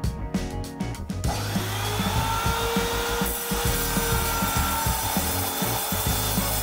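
An Evolution power saw cutting through a steel bar: a dense, hissing cut that starts about a second in, with a steady high ringing whine for a few seconds in the middle. Background music plays underneath.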